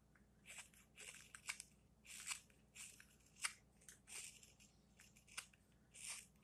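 Straight carving knife slicing thin shavings off the outside of a wooden spoon bowl to cut facets: a dozen or so short, crisp cuts at an irregular pace.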